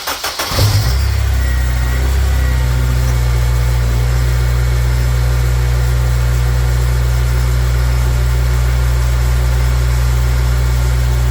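2006 Acura RSX Type S four-cylinder engine cranking, catching within about a second and then idling steadily after a cold start. No power steering pump whine is heard, a good sign that the new pump O-rings have cured it.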